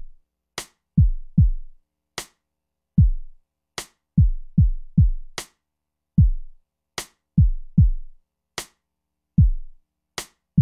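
Drum-machine beat on its own: deep kick-drum hits that slide down in pitch, some in quick pairs and triples, with a sharp snare or clap about every second and a half.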